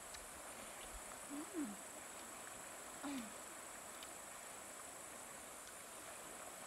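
Insects chirring with a steady high-pitched drone. Two short, low murmur-like sounds come about one and a half and three seconds in.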